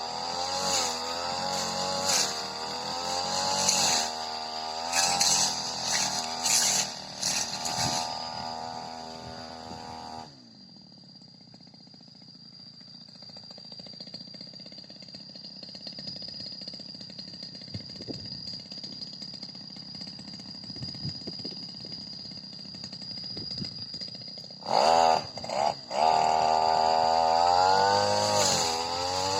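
Supra SPR328 brush cutter engine revving and bogging as it cuts thick grass. About ten seconds in it drops to a quiet idle, and it is throttled back up near the end.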